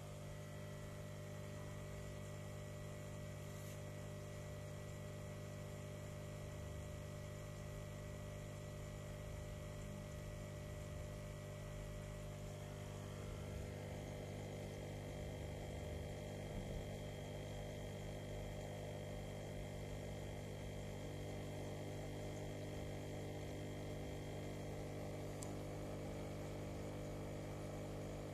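Steady electric hum of a saltwater aquarium's homemade protein skimmer pump running, its tone shifting slightly about halfway through.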